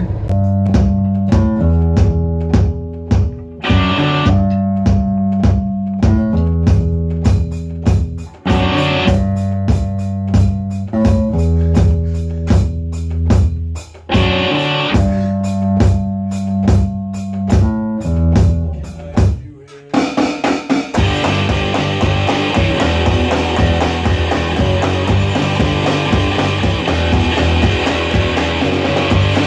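Rock music with electric guitar, bass and drums in a steady beat, with short breaks every few seconds. About twenty seconds in, it changes to a denser, noisier sound of a band rehearsing, with electric guitar through an amp and drums.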